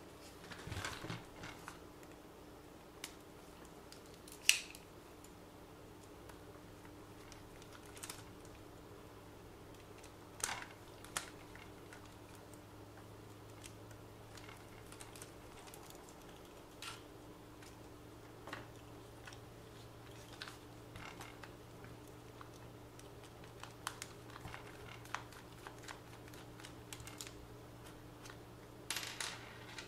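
Scattered light clicks and taps of small plastic RC car parts and tools being handled during disassembly, with one sharper click about four and a half seconds in, over a faint steady hum.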